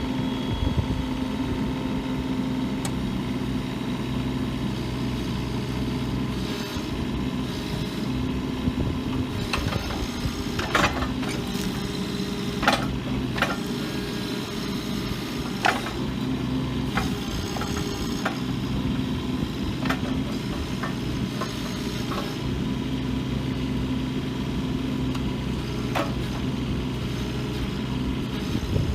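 Bobcat 324 compact excavator's diesel engine running steadily, with a few sharp metallic clanks scattered through it.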